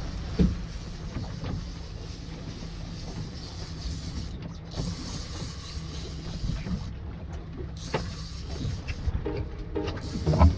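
Outboard motor running low and steady, with the whir and scattered clicks of a fishing reel being cranked against a hooked fish.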